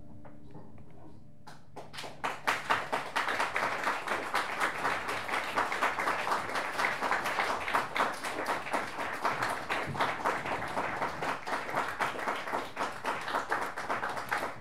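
A last held low note from the bass-and-keyboard duo sounds and stops just over a second in. Then audience applause breaks out: many hands clapping densely and steadily.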